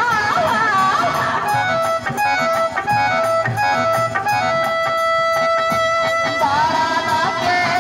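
Instrumental dance music from a live stage band. A high melody slides between notes, then breaks into short separate notes and one long held note before the sliding phrases return near the end.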